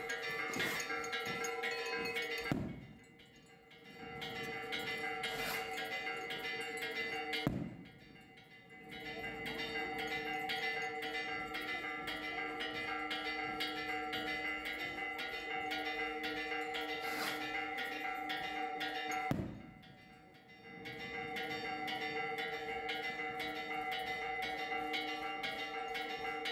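Church bells ringing continuously in rapid, evenly repeated strokes, their tones hanging steady under the strikes. Three times a sharp knock cuts the sound off for about a second before the ringing swells back.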